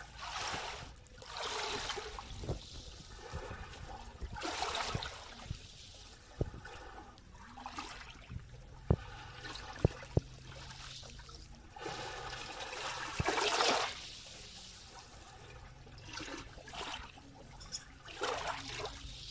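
Small ripples lapping onto wet sand in shallow water, washing in and draining back in gentle swells every few seconds. A few sharp clicks stand out about nine to ten seconds in.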